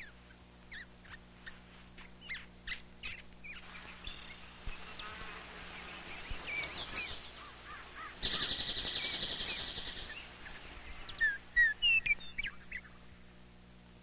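Wildlife soundtrack of short, high-pitched animal chirps and calls, with a steady hissing buzz about eight seconds in and a run of loud, falling chirps near the end.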